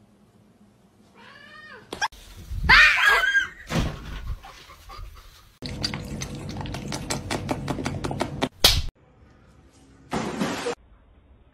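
A domestic cat meows, then gives a louder, longer yowl about two seconds in. A run of quick, even ticks follows, about six a second, ending in a sharp click, and a short burst of hissing noise comes near the end.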